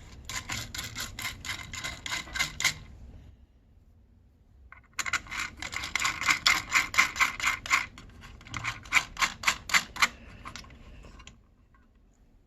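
Screwdriver clicking rapidly and evenly, about five clicks a second, as screws are driven in. There are two runs, one short and one longer that starts about five seconds in.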